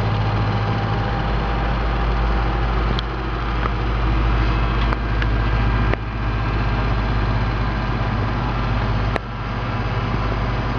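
Steady drone and rush of machinery noise on a jet airliner's flight deck, with a strong low hum and a few sharp clicks, the clearest about nine seconds in.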